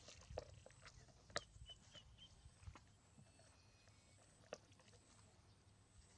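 Near silence broken by scattered light taps and clicks, with three short, high chirps close together about two seconds in.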